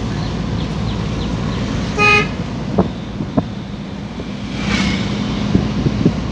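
Microbus engine and road noise heard from inside the cab while driving, with a vehicle horn tooting once, briefly, about two seconds in. A few light knocks follow.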